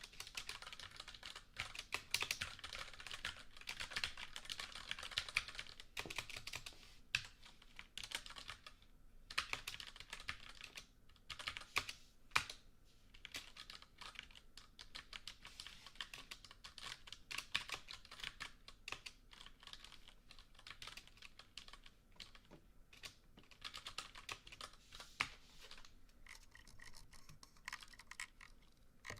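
Typing on a computer keyboard: dense, irregular runs of key clicks with short pauses between bursts.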